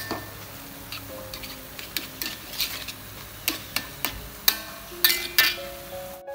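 Metal spatula clanking and scraping against a metal wok in irregular strokes while cabbage, carrot and egg are stir-fried.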